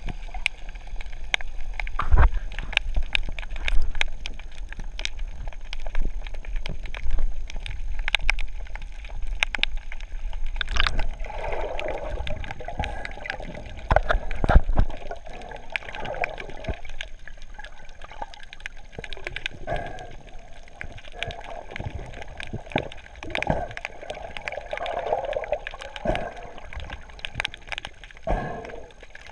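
Muffled underwater sound through a GoPro housing: a scuba diver's exhaled bubbles gurgling from the regulator in bursts of a second or two, mostly in the second half, over scattered clicks and knocks.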